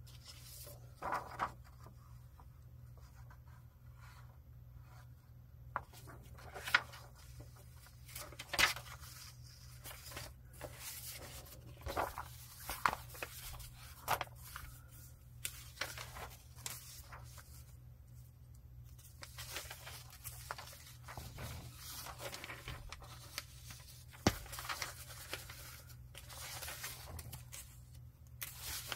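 Paper and card being handled for a junk journal: intermittent rustling, with light taps and clicks scattered throughout, over a steady low hum.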